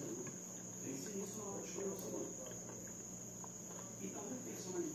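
Soft chewing with a few light clicks of cutlery on a glass plate, over a steady high-pitched insect chirring and a low constant hum.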